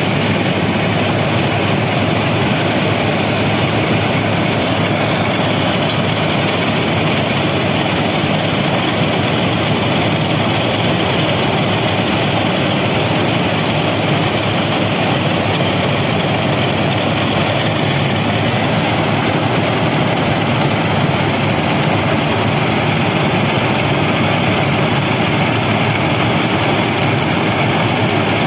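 An FRM-85F formation rehabilitation machine, a heavy railway track-maintenance machine, running with a loud, steady, dense mechanical noise.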